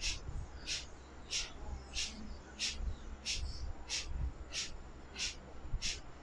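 Kapalabhati breathing: short, sharp, forceful exhales through the nose, pumped from the navel, evenly paced at about one and a half a second, with passive inhales between.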